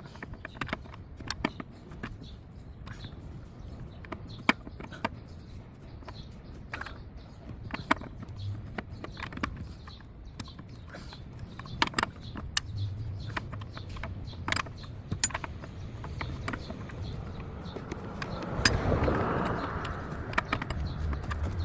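Hand tools working in an engine bay: scattered sharp metallic clicks and clinks at irregular intervals as a wrench loosens the PCV valve, with louder rubbing and scraping near the end.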